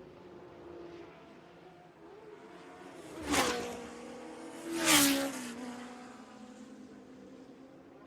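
Two Formula One cars pass close by in quick succession, about a second and a half apart. Each swells sharply and then fades, its engine note dropping in pitch as it goes past. A steady, distant engine drone runs underneath.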